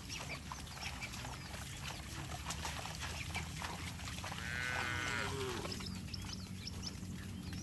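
A cow lowing once, a single moo of about a second a little past the middle, over a steady low rumble and faint short high chirps.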